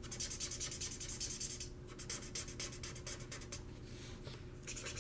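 Felt tip of a Spectrum Noir alcohol marker scrubbing on paper in quick back-and-forth coloring strokes, pausing briefly a couple of times.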